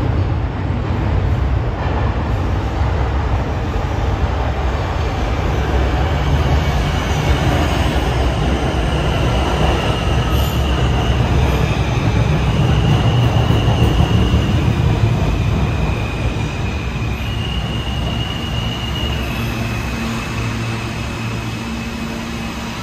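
R160 New York City subway train running: a loud, steady low rumble of wheels on rail, with high, thin tones that shift in pitch coming and going from about six seconds in until near the end. It is loudest around the middle and eases off afterwards.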